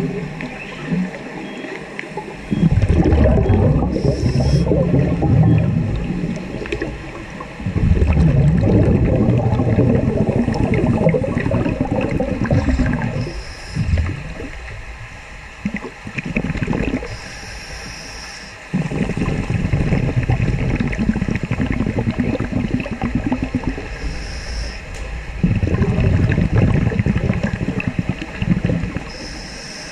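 Scuba breathing heard underwater: short hisses from a regulator on each breath in, then long, low, bubbling rumbles as the exhaled air escapes. This repeats over several breaths.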